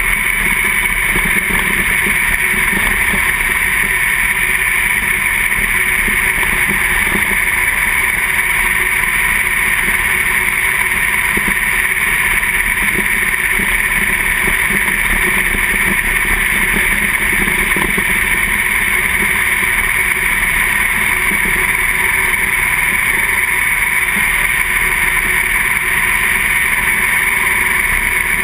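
Two-barrel-carbureted sprint car V8 running hard at racing speed, heard from a camera on the car's roll cage: a loud, steady engine drone with no let-up.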